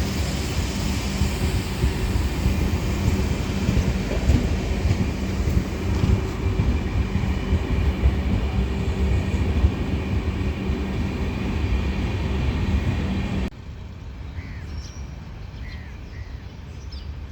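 Passenger express hauled by a WAP-7 electric locomotive running past close by: a loud, steady rumble of wheels on rail with an even electric hum. About thirteen seconds in, the train sound cuts off abruptly, leaving a quieter outdoor background with a few bird chirps.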